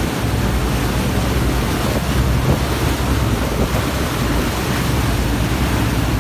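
A motor catamaran running at speed: a steady rush of wind on the microphone and water churning in its wake, with the boat's engine running underneath.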